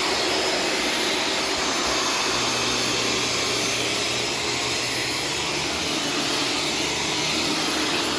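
Self-cleaning Shark vacuum cleaner running steadily while vacuuming.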